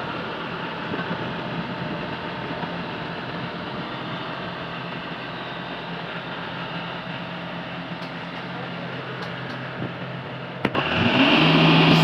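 Rice combine harvester's engine running steadily, then a click and a sudden step up to a louder, higher running sound near the end.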